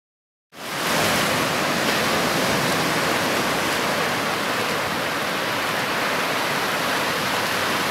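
Steady rush of sea surf washing around a shoreline rock, fading in about half a second in.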